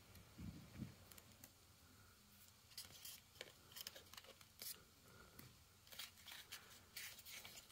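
Faint handling noises: light clicks, taps and scrapes of cardboard packaging inserts and small plastic action-figure accessories being handled.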